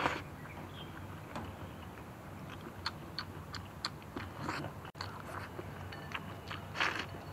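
A person eating close to the microphone: chewing beef and rice, with short wet mouth clicks and a few slurps of broth, the loudest near the end.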